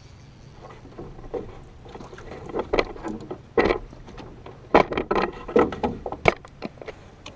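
A northern pike thrashing and splashing at the water's surface as it is netted beside a small boat, with irregular knocks and thumps against the hull; the loudest hits come in the second half.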